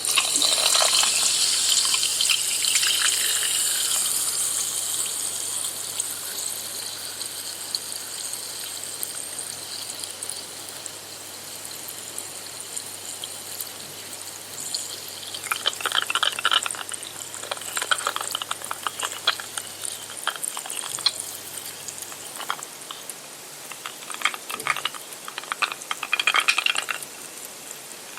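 Carbonated soda fizzing: a hiss of bubbles starts suddenly and slowly dies down over several seconds. In the second half come irregular bursts of crackling fizz.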